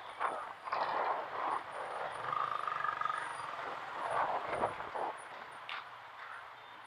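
City street traffic heard from a slow-moving motorcycle: engines running and traffic noise rising and falling, with a brief steady high tone near the middle.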